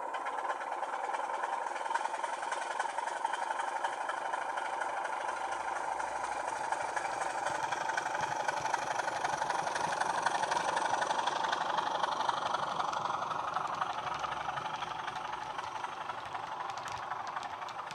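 Recorded diesel engine sound of a BR Class 27, with its Sulzer engine, played from a model locomotive's DCC sound decoder through a 27 mm bass-enhanced speaker. It runs steadily, louder around the middle as the model passes and fading as it moves away, with a few light clicks near the end.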